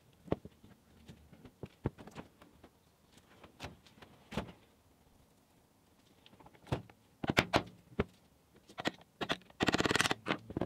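Hand tools clinking and knocking as they are picked up and set down on a wooden workbench and taken from a rolling tool chest drawer, with scattered single clicks, a cluster of sharper knocks about seven seconds in, and a quick rattle of clicks near the end.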